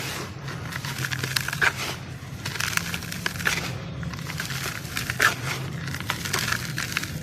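Dry charcoal sand slabs crushed and crumbling, a dense crisp crackle with scattered sharp snaps, two louder ones about two seconds in and near the end. A low steady hum runs underneath.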